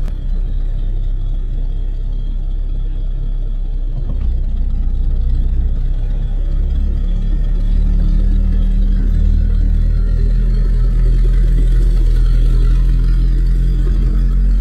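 Sherp ATV's diesel engine running with a low, steady drone as the machine approaches, growing louder over the first half and then holding. Near the end its large low-pressure tyre rolls onto a plastic snowmobile helmet.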